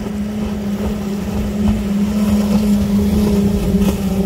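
A powerboat with five outboard engines running as it approaches, a steady engine drone that grows louder as it nears.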